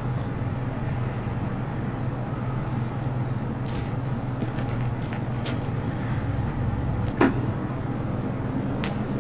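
A steady low rumble and hum, like nearby traffic or a motor, with a few brief crackles and one short upward squeak about seven seconds in as clear plastic stretch film is pulled and wrapped around a folded stroller.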